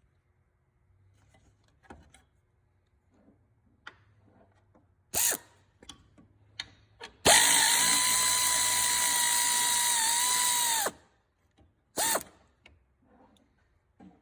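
A battery-powered tool's motor whirs as it backs out the 10mm bolts holding a truck's hood latch. There is a short burst, then a steady run of about three and a half seconds whose pitch dips briefly near the end, then another short burst. Faint clicks come between the runs.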